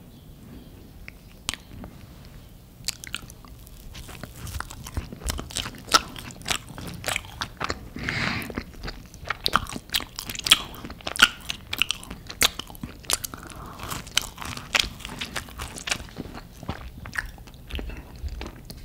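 Close-up eating of pan-toasted garlic butter bread: crisp bites and chewing with many small crunching crackles, starting about three seconds in and thickest through the middle.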